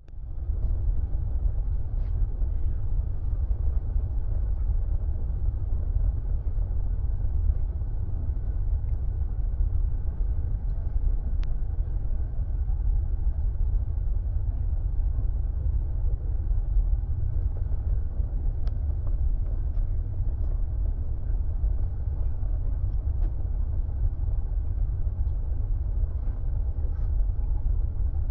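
Steady low rumble of engine and airflow noise inside an airliner cabin during the descent.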